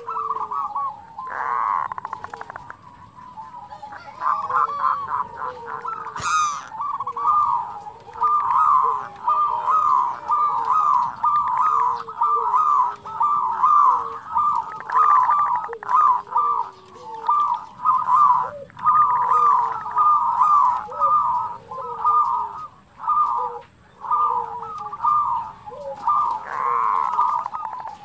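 Zebra doves (perkutut) singing. From about four seconds in there is a fast, almost unbroken run of short staccato cooing notes, broken by brief pauses, with lower slurred coos beneath.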